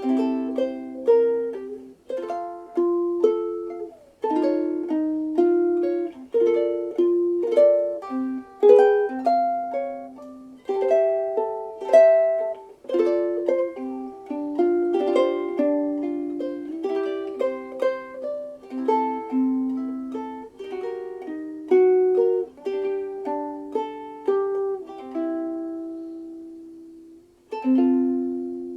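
Solid African mahogany, Ditson-shaped soprano ukulele being played: strummed chords about once a second with single melody notes picked between them. About 25 seconds in, a chord is left to ring and fade, and a fresh chord struck near the end rings out.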